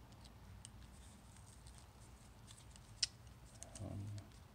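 Faint small clicks and taps of an RG6 coax cable and its connector being handled and fitted, with one sharper click about three seconds in.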